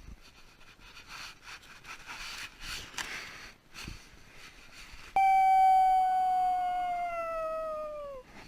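Boxer puppy howling in distress at being left alone, a sign of separation anxiety. After a few seconds of faint scuffling, one long, loud howl starts suddenly about five seconds in and sinks slowly in pitch until it breaks off near the end.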